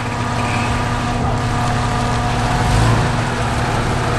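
Engine of an off-road 4x4 running at low revs while crawling the rocks, with a slight swell in loudness about three seconds in.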